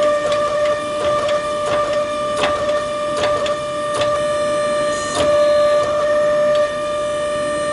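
A machine's steady high whine with irregular sharp clicks and taps over it.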